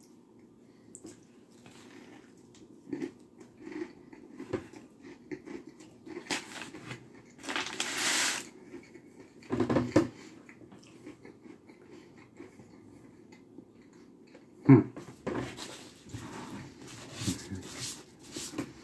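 A person chewing a crispy fried chicken sandwich: wet chewing with scattered small crunches and breaths. There is a second-long hissing rush about eight seconds in, and a sharp knock, the loudest sound, about fifteen seconds in.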